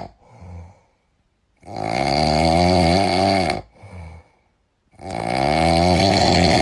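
Dog snoring: two long, loud snores of about two seconds each, with a wavering pitch, and short soft breaths between them.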